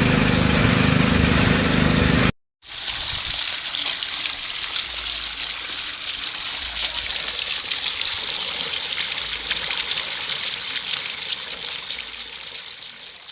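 A small engine running steadily, cut off abruptly about two seconds in. Then water gushing and splashing steadily, fading out near the end.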